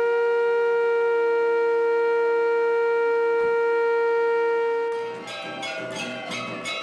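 A long, steady note from a wind instrument, held for about five seconds before it dies away. Other music takes over near the end.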